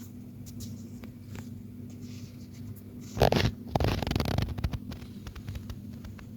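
Persian cat snoring: one loud snore about three seconds in, a short rasp followed by a longer fluttering one, over a steady low hum.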